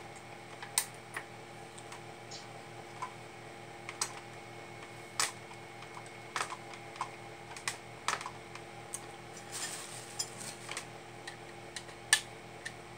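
Irregular small clicks and taps of hands working on a plastic battery-operated toy robot, fitting batteries into its battery compartment, with a sharper click about 12 seconds in. A steady faint hum runs underneath.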